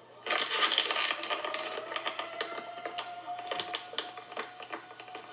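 A distant tornado warning siren winding up, its faint tone rising slowly and then holding steady, under loud crackling and rustling noise that starts suddenly about a third of a second in.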